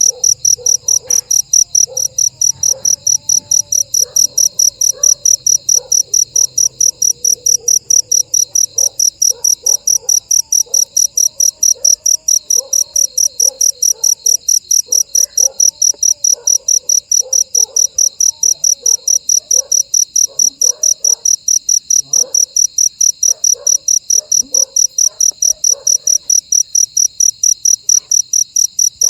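Cricket chirping: a loud, high, steady pulsed trill repeating about three times a second. Fainter short gliding chirps sound lower underneath.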